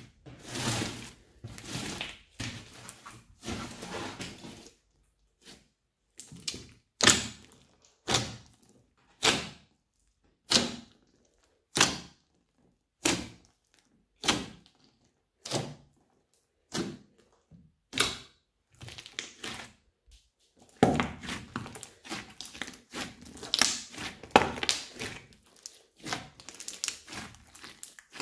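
A large mass of old slime mixed with clay and small beads being squished by hand: first some irregular squishing, then a regular series of short squelches as fingers press into it, about one every second and a bit, then a dense run of crackling and squelching as it is squeezed and folded near the end.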